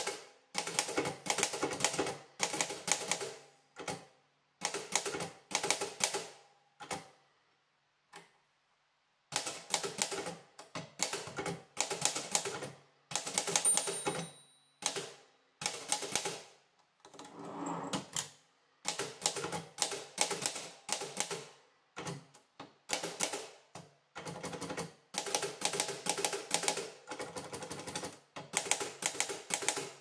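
Erika 8 portable typewriter being typed on: runs of sharp, clacking key strikes come in bursts separated by short pauses, with one longer silent gap about eight seconds in.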